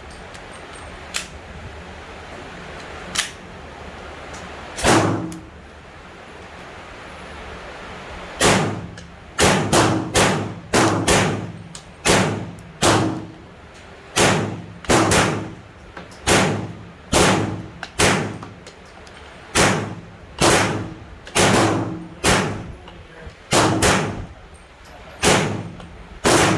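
Gunshots at a shooting range: a few scattered shots early on, then from about eight seconds in a steady string of some twenty loud shots, each a little under a second apart.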